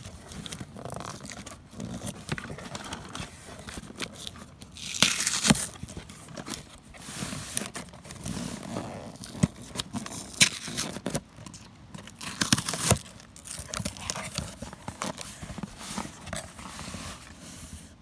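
Packing tape being scratched at, peeled and torn off a sealed cardboard shipping box, in a string of irregular scratches and rips. The loudest tears come about five, ten and thirteen seconds in.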